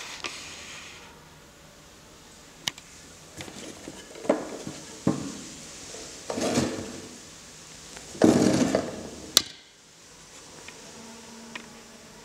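Handling noise from a small metal-cased MM8 audio mixer being picked up, turned over and moved on a wooden table: scattered knocks and clicks with short bursts of rubbing, the longest and loudest near the end.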